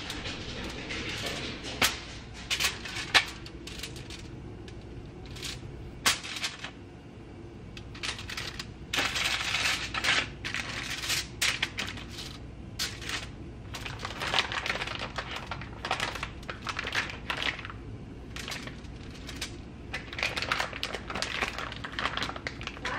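Aluminium foil on a sheet pan crinkling and a plastic bacon package rustling as raw bacon strips are handled and laid onto the pan, with scattered sharp clicks and taps in irregular bursts.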